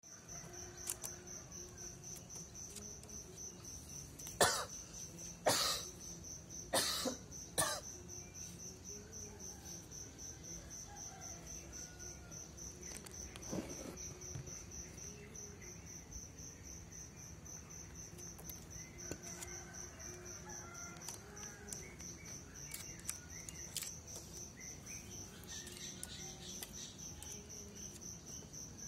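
A green junglefowl rooster gives four short, hoarse crows in quick succession between about four and eight seconds in, over the steady, fast chirping of crickets.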